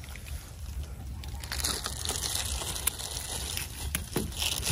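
Faint rustling and crinkling with a few light clicks, growing louder after about a second and a half, over a low steady rumble.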